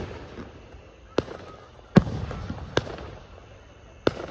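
Aerial fireworks exploding: four sharp bangs roughly a second apart, the second one the loudest, each followed by a fading rumble.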